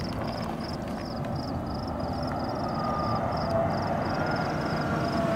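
Low steady rumble of wind and distant thunder from the storm, with night insects chirping in a regular high rhythm, a little under three chirps a second.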